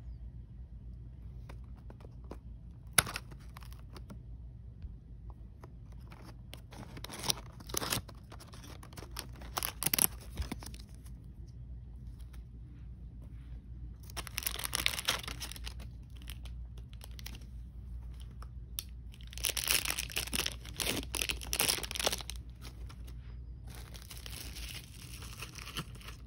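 Packaging of a Disney Doorables Mini Peek blind box being torn and crinkled by hand. There are a few sharp snaps in the first half, then several longer bursts of crinkling and tearing.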